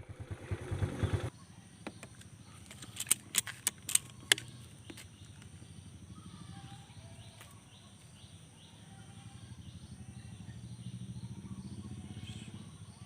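Low engine hum that swells near the end, with a rumbling burst at the start and a cluster of sharp clicks about three to four seconds in.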